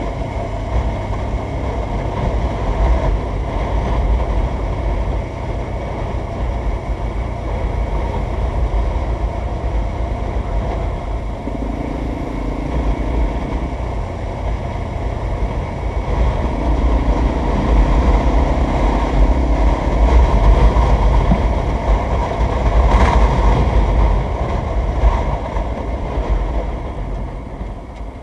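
Motorcycle ride at road speed: steady wind buffeting on the microphone with a deep rumble, over the engine and tyre noise, with a short sharp knock near the end.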